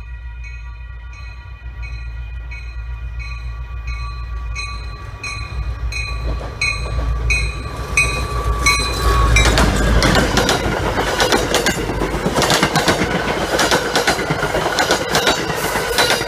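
MBTA commuter rail train approaching with a bell ringing about twice a second. The bell's pitch drops as the diesel locomotive passes about nine seconds in. Then the passing coaches' wheels clatter loudly on the rails over the low rumble of the train.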